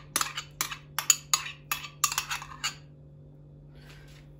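A metal spoon scraping and tapping against a bowl as the last of the melted butter is scraped out: quick clinks and scrapes, several a second, that stop about two-thirds of the way through.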